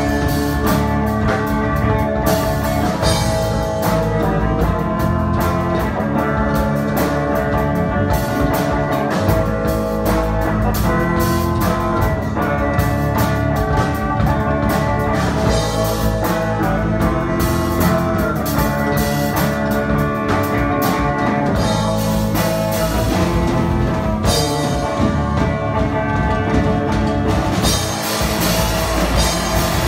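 A small rock band playing live on amplified electric guitars and a drum kit, with steady drums and cymbals under the guitars. The cymbals drop out for a few seconds near the end, then come back.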